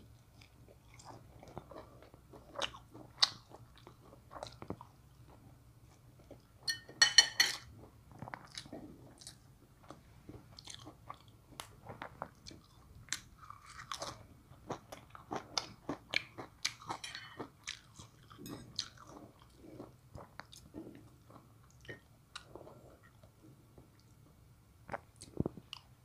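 A man chewing and biting a meal of omelette, grilled pork salad and rice with fresh greens, with crunches and many short clicks of a spoon and fork on plates. A loud cluster of clicks comes about seven seconds in.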